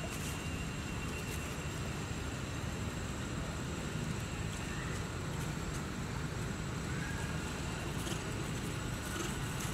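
Steady low rumbling background noise with a faint, thin, high steady tone over it; no clear splashing or monkey calls stand out.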